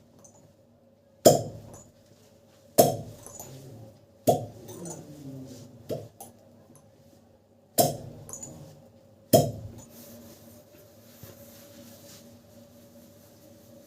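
Six sharp impacts, evenly paced about every second and a half, each dying away quickly; a faint steady hum remains after the last one.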